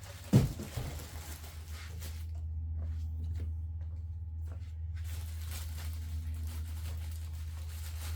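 A thump a moment in, then rustling and handling of packaging and plastic tool parts, over a steady low hum.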